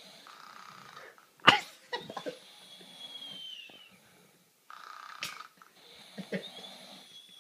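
Snoring, the breath carrying a thin high whistle that falls in pitch. A sharp knock about one and a half seconds in is the loudest sound, with a smaller one about five seconds in.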